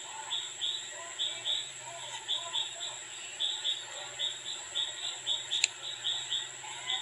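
Short, high chirping calls repeating unevenly a few times a second, from animals in the background, over a faint steady high whine. A little past five seconds in there is a single sharp click as tweezers set a steel plate onto the watch movement.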